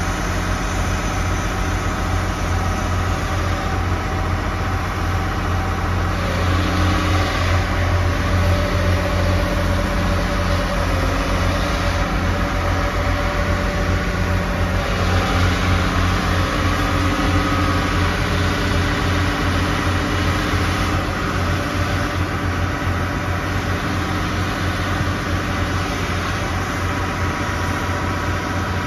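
Diesel engine of a Cat 6015B hydraulic excavator running steadily with a deep hum, a little louder twice as it works its clamshell on an extender pipe, with tones that shift slightly in pitch as the load changes.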